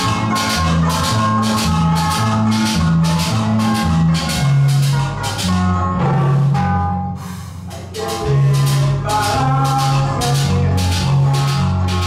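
Live church band playing: electric guitars and bass over drums with a steady beat. Around the middle the drums stop for about two seconds, leaving a few held notes, then the full band comes back in.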